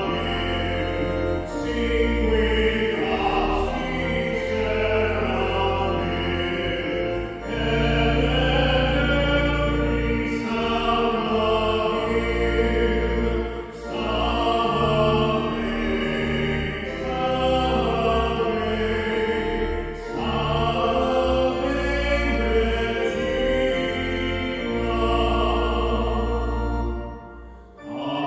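A male cantor singing a slow hymn in long held phrases over sustained low instrumental accompaniment. The sound dies away briefly near the end before the next phrase.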